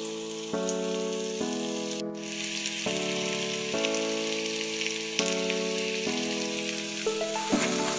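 Jengkol and green chillies sizzling as they fry in oil in a pan. Background music of held chords changing about once a second plays over it.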